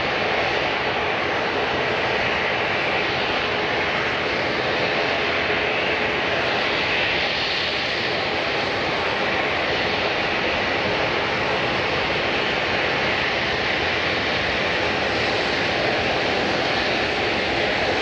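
Airliner engines running with a steady, even noise that swells slightly about halfway through.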